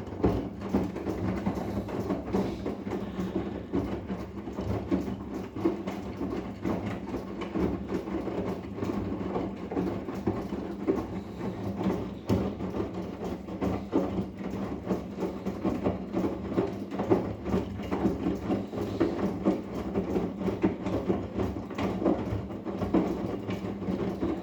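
Arçelik 10121 washing machine running, a steady motor hum under a dense, irregular clatter from the turning drum.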